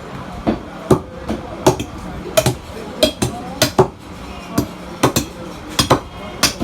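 Butcher's cleaver chopping through a cow's leg meat and bone on a wooden block: a run of sharp, irregular chops, two or three a second, a few with a short metallic ring.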